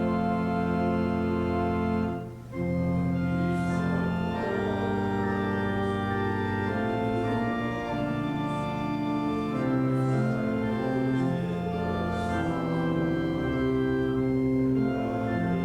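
Church organ playing slow, sustained chords that change every second or two, with a brief break between phrases a little over two seconds in.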